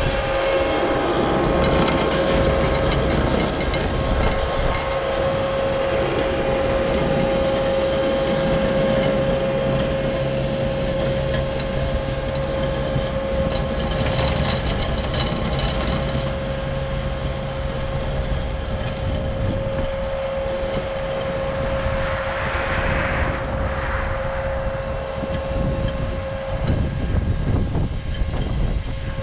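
ASV RT40 compact track loader running a hydraulic Harley rake through dry dirt. Its diesel engine runs steadily under load with a constant whine over the grinding of the rake drum and tracks. The sound grows a little fainter as the machine moves off.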